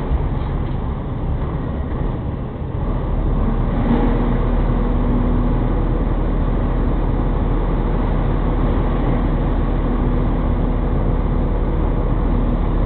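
Heavy truck's diesel engine idling while stationary, heard from inside the cab: a steady low rumble, with a low hum settling in about three seconds in.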